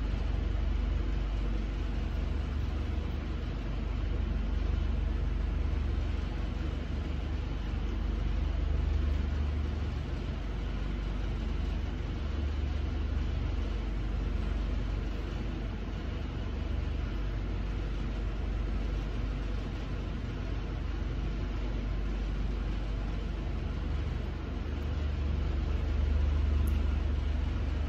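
Steady low rumble of an idling vehicle engine, with an even hiss above it.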